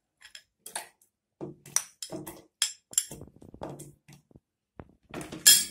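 Banana slices tipped from a glass bowl into a plastic blender jar of milk: a run of light, irregular knocks and clinks of glass on plastic and slices dropping in, with a louder knock near the end.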